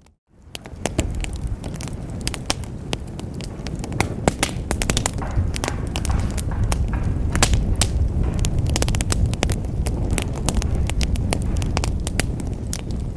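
Wood fire in a fireplace crackling, with many sharp irregular pops over a low steady rumble of the flames. The sound drops out briefly at the very start and fades straight back in.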